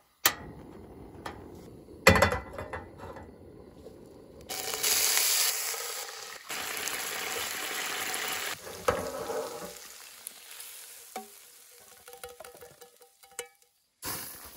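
Food frying and sizzling in a pan, cut together from short clips, with clicks and scrapes of a cooking utensil. The sizzle is loudest from about five seconds in to about nine seconds in.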